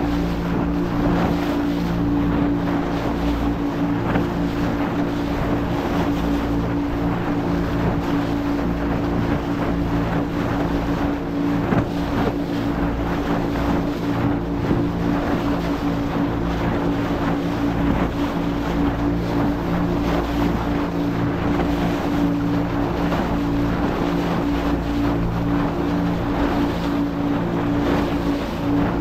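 Motorboat engine running steadily at an even pitch, with water rushing past the hull and wind buffeting the microphone.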